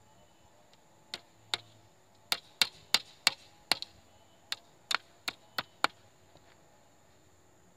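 A hammer driving a nail into a wooden pole: about a dozen sharp strikes, irregularly spaced, starting about a second in and ending near six seconds.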